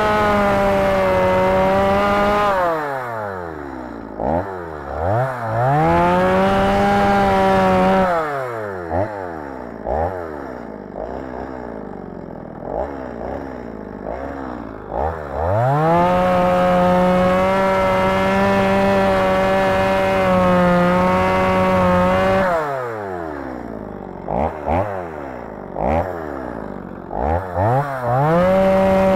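Gas chainsaw revved to full throttle and held there for a few seconds at a time, four times, the longest hold about six seconds, falling back to idle between with short blips of the throttle. The saw is cutting small stumps off at ground level in sand.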